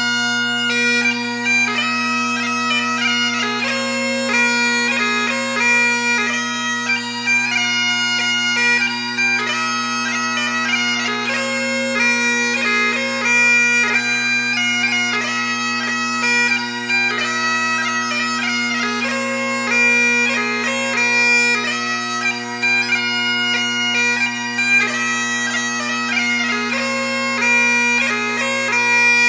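Bagpipe music: a melody of quickly changing notes played over steady, unbroken drones.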